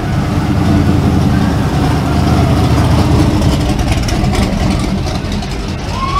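First-generation Chevrolet Camaro Z/28's V8 rumbling at low speed as the car drives slowly past close by. The sound is loudest for the first few seconds and eases as the car moves away.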